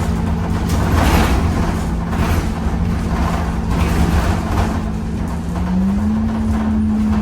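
Temsa Avenue LF 12 city bus with a DAF Euro 5 engine and ZF gearbox running on the road: a low rumble under a steady two-note whine, the lower note rising slightly about six seconds in.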